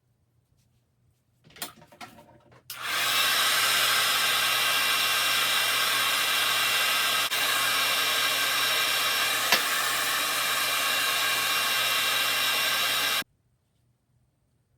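Handheld hair dryer (blow dryer) running steadily on a wig's glued lace for about ten seconds, then cutting off abruptly. A few short clicks come just before it starts.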